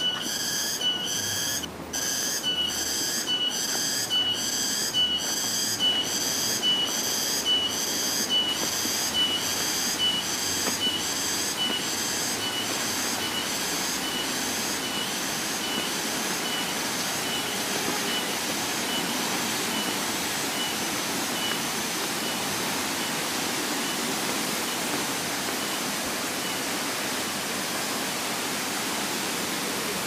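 Steady rushing of a waterfall, with a rhythmic high chirping call repeating about three times every two seconds that is loudest at first and fades out after about twenty seconds.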